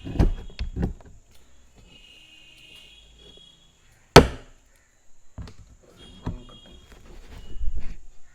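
Hands handling and opening the packaging of a laptop charger adapter, a series of knocks and rustles, with one sharp loud snap about four seconds in.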